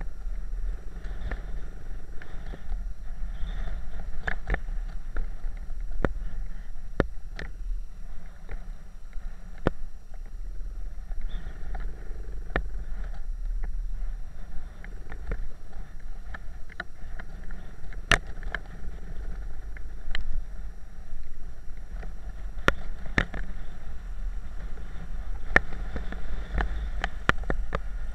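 Small trail motorcycles riding over a rutted dirt track: a steady engine and wind rumble, with frequent sharp knocks and rattles as the bike goes over bumps.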